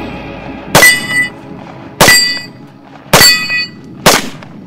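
AR-15 match carbine in .223 firing four rapid shots about a second apart at steel plate targets. The first three are each followed by the high ringing clang of a hit steel plate; the last has no ring.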